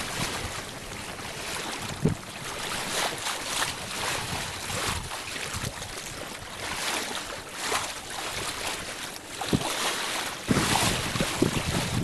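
Water rushing and splashing along the hull of a Catalina 22 sailboat under way, surging about once a second. Wind buffets the microphone, gustier and louder near the end.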